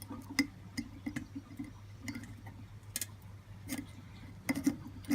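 Light, irregular clicks and taps of metal hand tools against small copper pieces during soldering, over a steady low hum.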